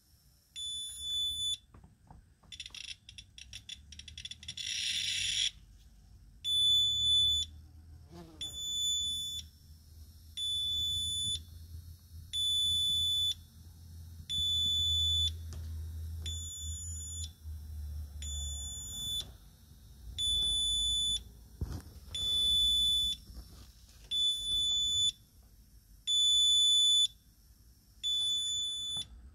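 Rotem RAM GENE-1 radiation meter sounding its alarm, a high-pitched beep about a second long repeating every two seconds, as it reads a high dose rate from pitchblende uranium ore. A short burst of dense crackle comes a few seconds in.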